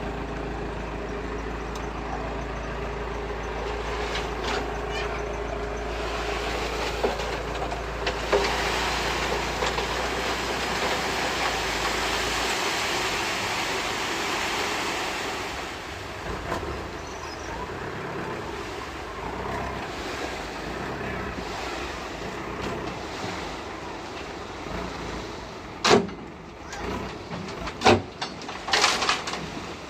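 Toyota Rino dump truck's diesel engine running steadily as the loaded bed tips, its low hum dropping away about twelve seconds in. A rushing hiss of sand sliding out of the bed swells in the middle. A few sharp knocks come near the end.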